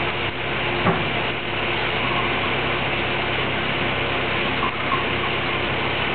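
Steady hum and hiss of running machinery, with one click about a second in.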